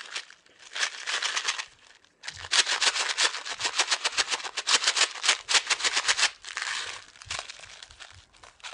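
Plastic candy wrapper crinkling and crackling close to the microphone as it is handled and torn open: dense, rapid runs of crackles, with a brief pause about two seconds in and thinner crackles near the end.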